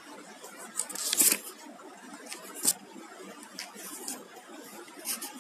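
A few short rustles and clicks, the loudest about a second in, over a faint steady room hiss.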